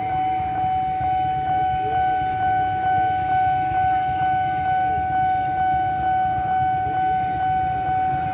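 Railway level-crossing warning alarm sounding: one steady high tone pulsing in an even rhythm, warning of an approaching commuter train. Road traffic rumbles underneath.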